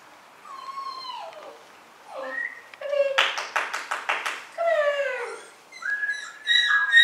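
Puppy whining in falling whimpers, with a quick run of about eight sharp clicks about three seconds in.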